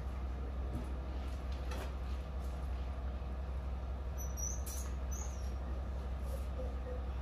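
Pickup truck engine idling with a steady low hum, with a few short high squeaks about four to five seconds in.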